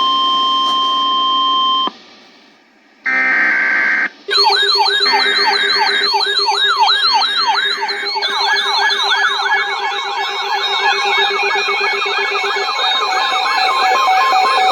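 A steady electronic alert tone cuts off about two seconds in. After a brief chord-like tone, several electronic siren tones wail up and down at once, overlapping. Their sweeps quicken about halfway through.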